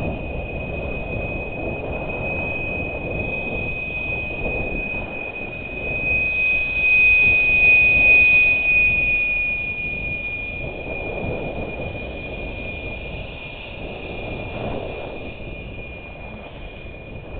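Skiing heard from a helmet-mounted camera: wind rushing over the microphone and skis scraping across packed snow, swelling and easing with the turns and loudest about halfway through. A steady high-pitched whine sits over it throughout.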